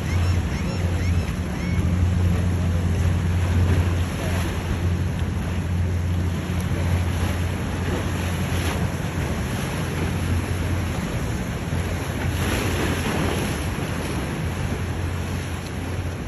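A powerboat's engines drone low and steady as it runs out through breaking inlet waves, with surf and wind buffeting the microphone. The engine drone fades after about eleven seconds as the boat pulls away, leaving the rush of waves and wind with a couple of louder surges of surf.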